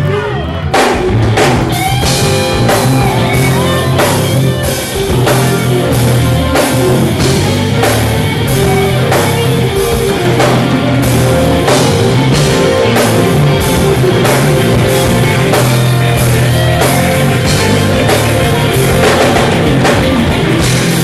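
Live band playing loud, with drum kit, bass and guitar over a steady beat.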